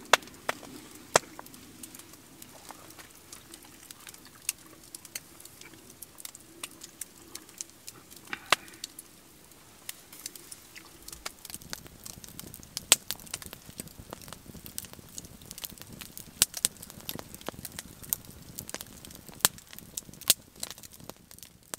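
Open wood campfire crackling, with irregular sharp pops that come more often in the second half.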